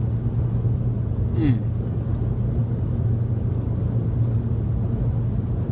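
Steady road and engine noise inside the cabin of a car driving on the motorway, a low constant rumble. About a second and a half in, a brief falling voice sound, like a short hum.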